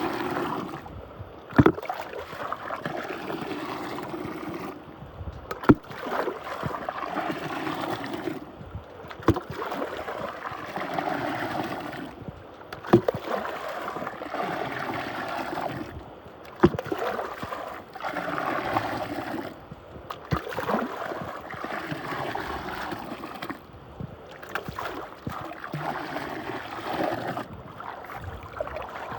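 Water swirling and gurgling in a whirlpool vortex, rising and falling in swells, with a sharp click or knock about every three to four seconds.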